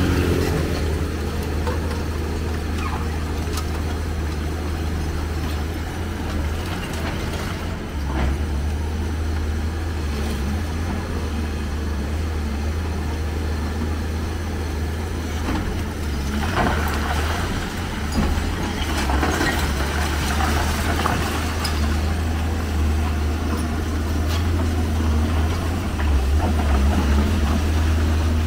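Hyundai tracked excavator's diesel engine running steadily under load as it tears at a concrete building, with crackling, clattering concrete debris falling a little past halfway.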